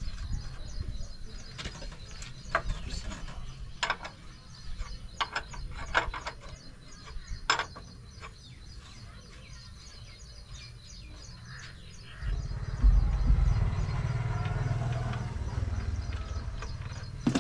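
Sharp metallic clicks and knocks of a spanner working a bolt on the underside of a truck, with faint bird chirping behind. About twelve seconds in, a louder low rumble sets in and continues.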